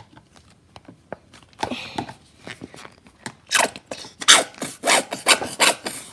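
Stiff slime being worked with lotion in a bowl: a few faint rubbing noises, then from about halfway a quick run of loud, rough rubbing and scraping strokes.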